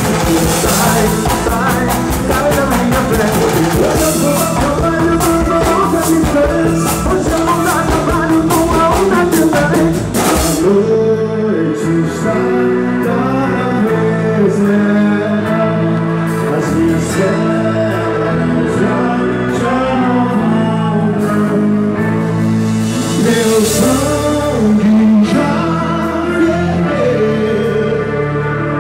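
Live Bahian pagode band: the percussion section's hand drums play a fast, dense groove under singing. About ten seconds in the drums drop out, leaving sustained chords and the lead vocal.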